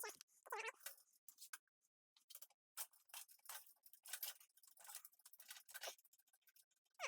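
Faint, irregular clicks and scrapes of hand tools handling engine parts during an engine teardown.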